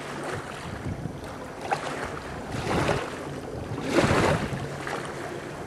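Sea-Doo personal watercraft engine running at low speed with a steady low hum. Wind buffets the microphone in gusts, loudest about three and four seconds in.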